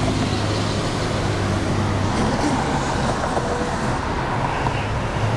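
Street traffic noise: cars passing on a city avenue, over a steady low hum.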